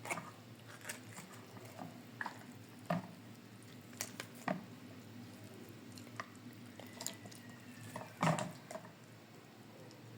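Irregular light clicks and knocks of objects being handled, about a dozen, the loudest about eight seconds in, over a low steady hum.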